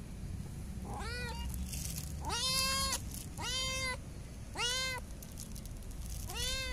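A cat meowing five times in a row, each call rising and then falling in pitch, the second call the longest and loudest.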